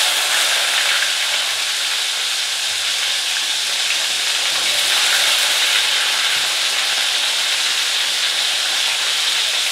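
Chopped onions just tipped into hot oil in a kadai, frying with a steady, dense sizzle.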